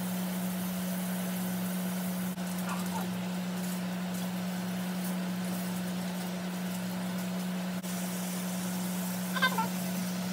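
Kitchen faucet running into a stainless steel sink: a steady hiss with a constant low hum under it. Short, faint, high whines break in twice, about three seconds in and near the end.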